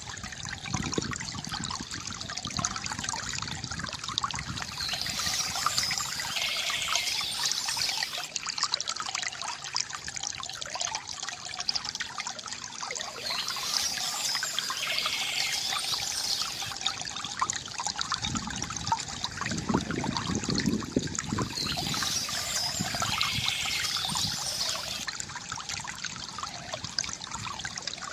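Water from a bamboo fountain trickling and gurgling, with a few heavier, deeper splashing spells, one near the start and one about two-thirds of the way through.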